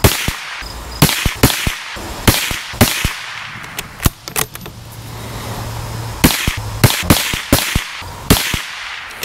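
A string of shots from a Tikka T1X bolt-action .22 LR rifle firing CCI Mini Mag high-velocity hollow points, sharp cracks spaced about a second or more apart in two clusters, with shorter clicks in between from the bolt being cycled.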